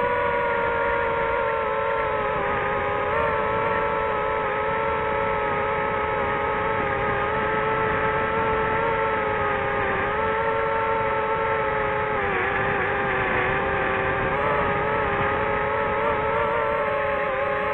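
DJI FPV drone's motors and propellers whining steadily in flight, a layered tone that wavers and dips briefly in pitch a couple of times in the second half with throttle changes.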